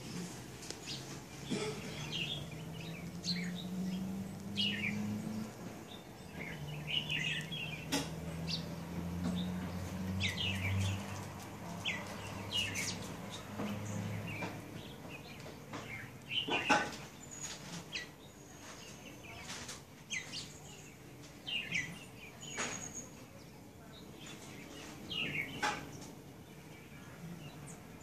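Small birds chirping in short repeated calls. A low steady hum runs under the first half and stops about halfway, and a few sharp clicks stand out, the loudest a little past halfway.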